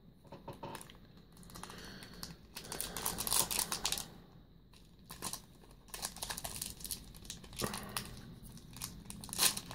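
Foil Yu-Gi-Oh! booster pack crinkling and being torn open by hand, in two spells of crackly rustling with a short lull between them.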